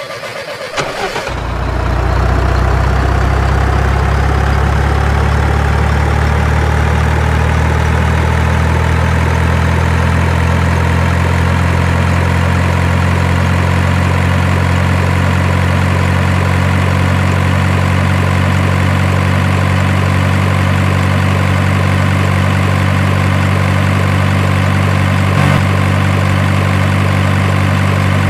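Heavy truck engine starting about a second in, then running steadily at a low idle, with a faint whine that slowly rises in pitch over the first several seconds.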